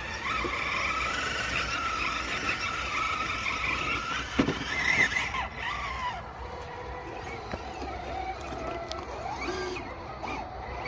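Electric drive motors and geartrains of Vanquish VS4-10 Origin RC crawlers whining as they climb over rock, the pitch holding steady at first and then rising and falling with the throttle, with a sharp knock about four and a half seconds in.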